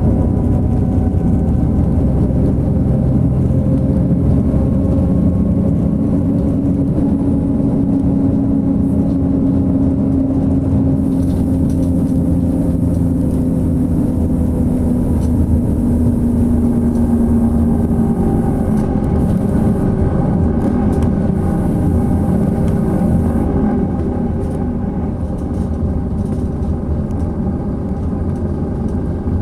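Diesel coach at highway speed heard from inside the cabin: a steady engine drone over tyre and road rumble. The engine note sinks slowly partway through, and the whole sound gets a little quieter near the end.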